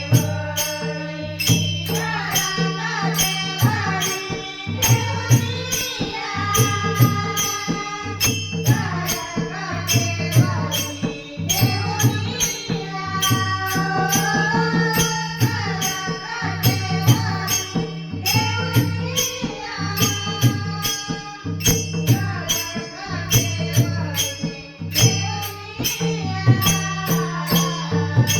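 Marathi devotional bhajan: a woman sings a gliding melody over a mridang drum playing a repeating pattern, with a jingling percussion beat struck steadily throughout.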